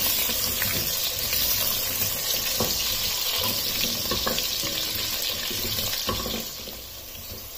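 Potato chunks frying in hot oil in a stainless steel pot, a steady sizzle, with a silicone spatula stirring them and knocking against the pot a few times. The sizzle gets quieter about six and a half seconds in.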